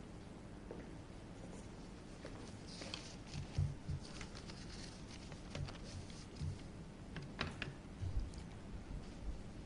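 Scattered faint thumps and sharp clicks with some rustling as a lectern and its microphone are handled, over the low hum of a large hall.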